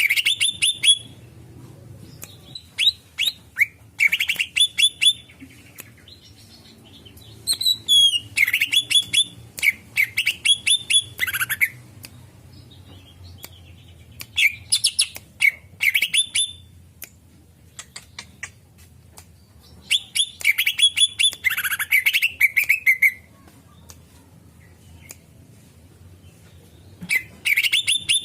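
Cucak ijo (greater green leafbird) singing: phrases of rapid, sharp repeated notes, about six of them, each one to four seconds long, with short pauses between.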